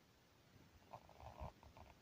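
Near silence: room tone with a few faint, soft knocks about halfway through.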